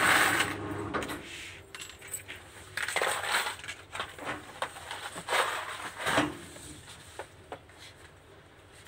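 Small gold-coloured metal pieces rattling in a plastic bottle, then tipped out and clinking onto a cutting mat in a few scattered clicks.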